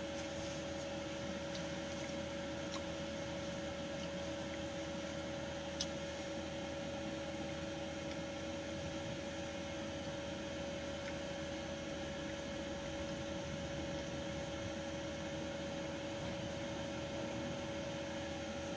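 Steady mechanical hum with a constant tone, and a few faint light clicks, the clearest about six seconds in.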